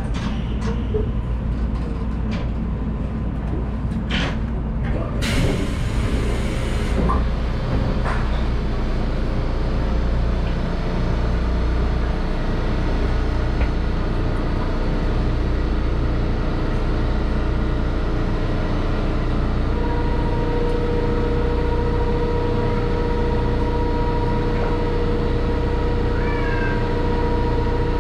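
Mitsubishi 1000 Series suspended monorail car standing at a station, its onboard equipment giving a steady low hum, with a few clicks and a burst of hiss about five seconds in. From about twenty seconds in a steady high tone sounds over the hum for several seconds.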